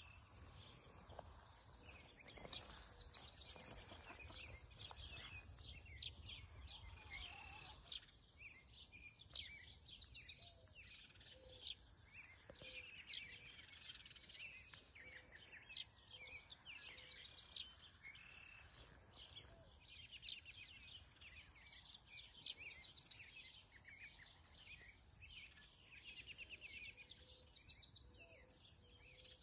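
Quiet outdoor birdsong: many short, high chirps and trills repeat throughout, with the faint, low soft clucks of foraging hens coming now and then.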